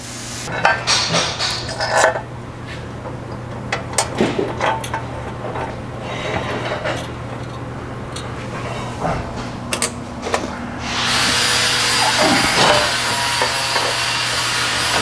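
Metal clicks, clinks and rubbing of bolts, spacers and a steel skid plate being handled and hand-threaded into their mounts, over a steady low hum. About eleven seconds in, a loud, steady hissing noise starts and continues.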